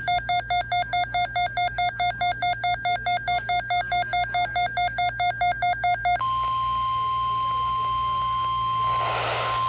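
An electronic alert alarm beeping rapidly, about four to five warbling beeps a second, stops about six seconds in and gives way to the steady single-pitch 1050 Hz NOAA Weather Radio alert tone that announces an incoming weather message. A short burst of noise comes over the tone near the end.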